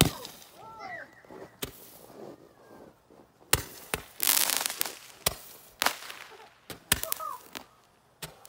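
A consumer firework on the ground firing shot after shot into the air, giving about ten sharp pops at uneven intervals. A few of the pops are followed by a crackling hiss.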